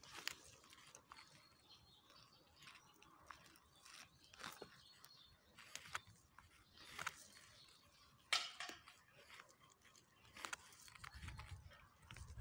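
Faint, scattered crackling and rustling of a mouse nest's dry grass being picked apart with a hand tool, with occasional sharper clicks. A low rumble builds near the end.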